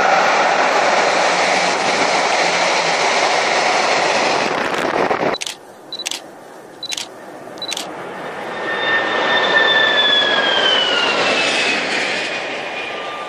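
High-speed trains passing at speed. A loud rush of noise cuts off abruptly about five seconds in, followed by a few sharp clicks. Then another pass swells up with a whine that drops in pitch as the train goes by, and fades.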